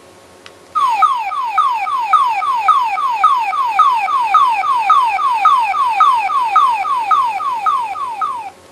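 GouraiChanger toy transformation brace in its Kuwagaraiger stag-beetle form playing an electronic sound effect through its small speaker, set off by a button click: a rapid run of falling beeps, nearly four a second, that cuts off abruptly near the end.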